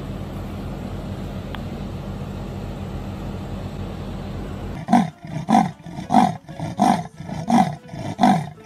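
A steady low rumbling noise, then, about five seconds in, a leopard's rasping sawing call: a run of about six harsh, evenly spaced grunts, roughly one and a half a second.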